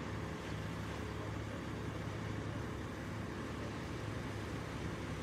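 100-ton truck-mounted mobile crane's diesel engine running steadily with a low, even drone while it holds its load.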